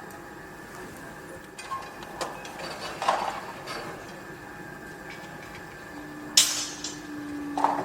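Construction-site noise: a steady machine hum with scattered metallic clinks and knocks, the loudest a sharp metal strike about six seconds in. A low steady tone joins for the last two seconds.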